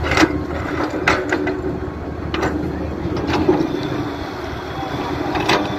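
Backhoe excavator engine running steadily, with about six sharp clanks and thuds as the bucket works, dumping soil into a tractor trolley and swinging back down to dig.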